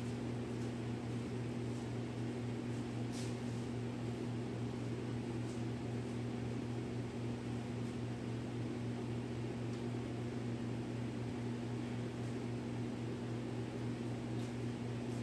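Steady low electrical hum over a constant hiss, the sound of a motor or fan running, with a few faint ticks about three and five seconds in.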